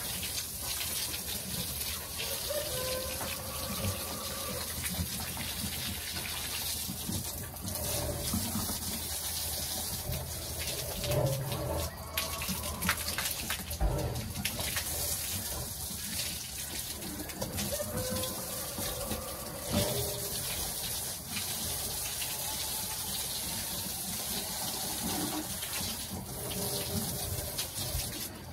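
Garden hose spraying water steadily onto the concrete floor of a pigsty as the pen is washed out.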